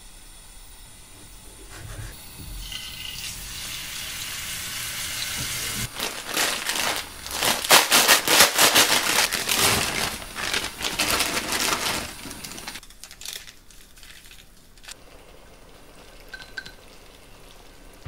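Cooking sounds: a pot of water at a rolling boil and a plastic instant-noodle packet crinkling as the noodles are tipped in. The crackling is loudest in the middle and dies away to a low hiss near the end.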